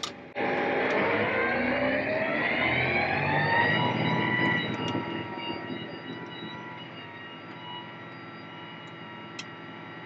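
Tractor and PTO-driven rotary ditcher pulling away into the cut: a whine that rises in pitch over the first few seconds, then settles into a steady drone.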